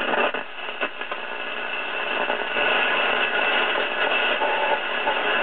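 Shortwave static hissing from a vintage Zenith Trans-Oceanic radio's speaker between stations, with a few clicks in the first second and a brief whistle a little past four seconds in.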